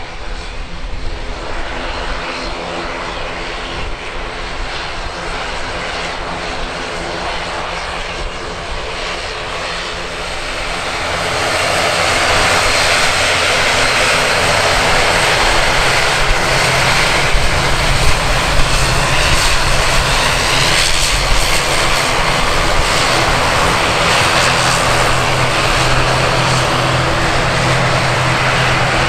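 Airliner engines running steadily with several fixed tones. About eleven seconds in they grow much louder and stay loud.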